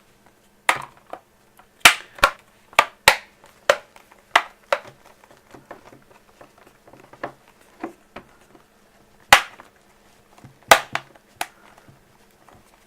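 Plastic rear cover of a tablet being pressed home, its clips snapping into place one after another: a series of sharp clicks, most of them in the first half, then a few more near the end.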